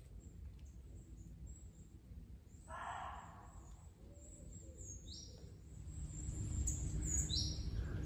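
A muntjac deer's single short bark about three seconds in. Two brief high chirps follow later, and a low rumble builds near the end.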